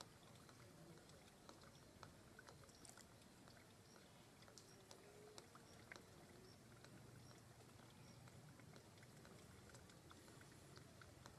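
Near silence: faint outdoor background with scattered soft clicks and a few short, faint high peeps.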